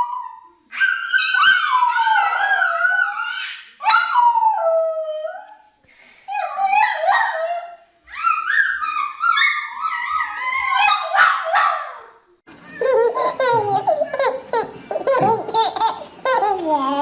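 Dog whining and howling in a string of long, high calls that slide up and down in pitch, with short breaks between them. About twelve and a half seconds in, a lower, quicker wavering voice takes over.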